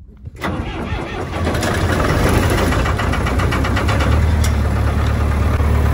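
Diesel engine of an Ingersoll Rand portable air compressor started on its electric starter from cold, without glow plugs. It catches about a third of a second in, builds up over the next couple of seconds, and settles into a steady run.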